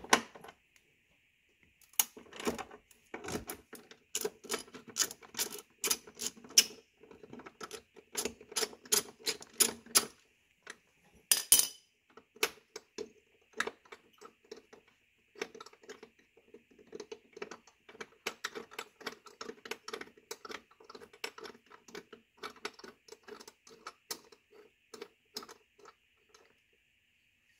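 Light, irregular metallic clicking, often in quick runs, as a door striker bolt with its bushing is turned into a car's door pillar, over a faint steady hum.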